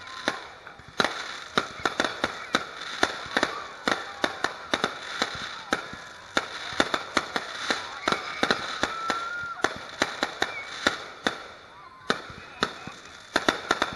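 Aerial fireworks going off in a rapid, irregular series of sharp bangs, pops and crackles, with a brief lull near the end.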